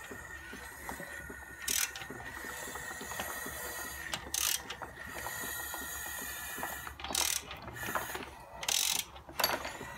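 Ratchet wrench clicking as the crankshaft of a 1.2 12V three-cylinder engine (AZQ/BME) is turned over by hand, with a few short hissing bursts in between.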